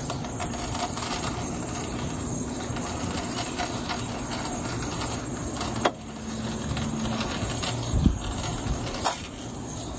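AGR replacement steering box on a 1989 Jeep Cherokee XJ, steered to the right, making a steady crunching and gurgling noise under a low hum. The hum stops about seven seconds in. There is a sharp click about halfway through and a couple of knocks near the end. The owner takes the sound for a fault in the new box and calls it terrible.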